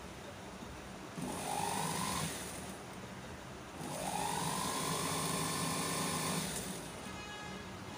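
Industrial sewing machine running in two stitching runs: a short one about a second in, then a longer one from about four seconds to nearly seven. Each starts with a rising whine as the motor speeds up, holds steady, then stops.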